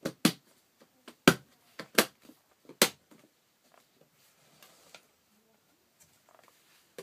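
Hands handling a clear plastic enclosure: about five sharp plastic clacks and knocks in the first three seconds, the loudest about a second in, then faint scraping and rustling.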